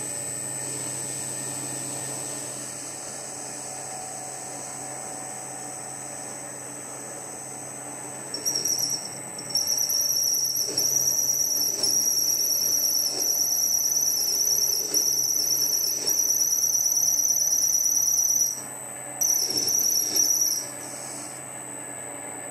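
Warco 280 metal lathe running with a steady hum while a parting tool cuts a relief groove in a steel bar. About eight seconds in, the tool sets up a loud, high-pitched, warbling squeal that comes and goes in long stretches, breaks off briefly, and stops shortly before the end.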